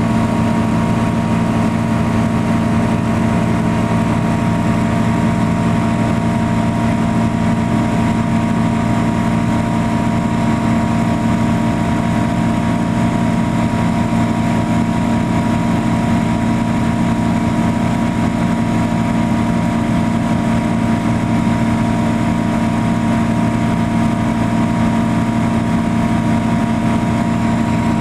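Europa light aircraft's piston engine and propeller droning steadily in flight, heard inside the cockpit, holding one constant pitch throughout.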